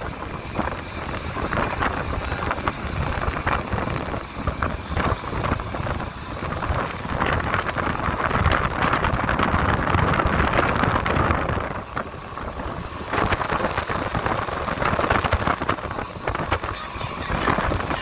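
Wind buffeting the microphone in gusts over the rush of sea water along the hull of a tanker under way, with a steady low rumble underneath.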